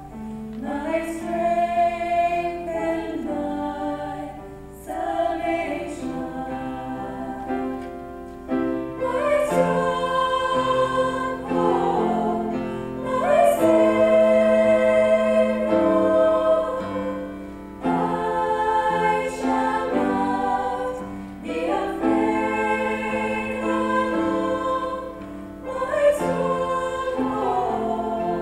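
A women's choir of eight voices singing together, holding notes in phrases of about four seconds, each separated by a short break.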